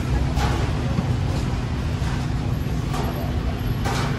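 Steady city road traffic: a continuous low rumble of engines and tyres with a constant hum, and a few brief sharper sounds on top.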